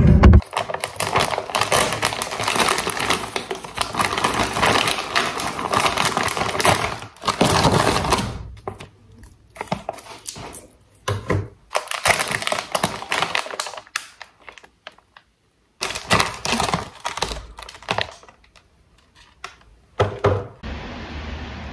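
Plastic food packaging crinkling and rustling as frozen steamed buns are handled and taken out of their bags. The crackle is dense for the first several seconds, then comes in shorter bursts with pauses between.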